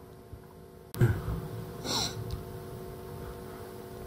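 Handling noise on a wooden tabletop: a sudden knock about a second in as a plastic object is set down on the board, then a brief hissy sound about a second later, over a steady faint electrical hum.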